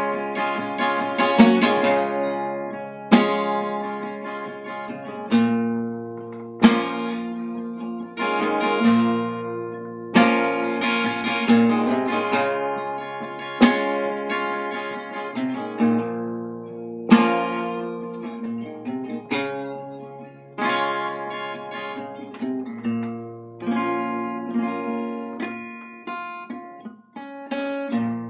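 Epiphone EL-00 parlor acoustic guitar, capoed, strummed with a flat pick, playing chords without singing: each accented strum rings out and fades before the next.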